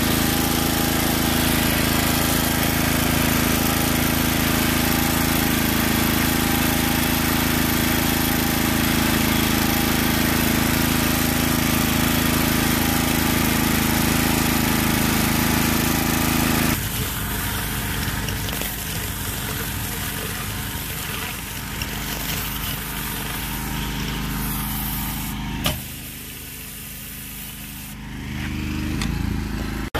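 Hot-water pressure washer's petrol engine running steadily at speed. A little past halfway the sound drops suddenly to a quieter, rougher mechanical noise, with a sharp click about 26 seconds in and a brief lull before it builds again near the end.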